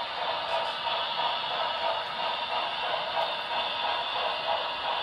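HO scale model train running along the track, its wheels and motor making a steady rolling noise with a faint regular pulsing.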